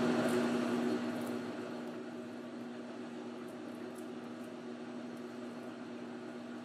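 Precision Matthews 1236-T metal lathe running steadily as a carbide parting tool cuts into a spinning 304 stainless steel bar under power feed: a steady machine hum that drops slightly in loudness about a second in.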